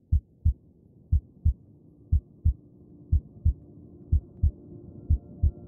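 Heartbeat sound effect in a film soundtrack: paired low thumps, lub-dub, about once a second, six beats in all, over a low drone that slowly swells. A faint, thin, high steady tone comes in near the end.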